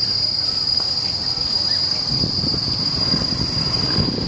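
Insects in the trees making a steady, high-pitched drone. An irregular low rumble joins in about halfway through.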